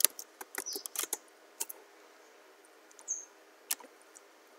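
Clicking of a computer keyboard and mouse: a quick run of clicks in the first second or so, then a few scattered ones.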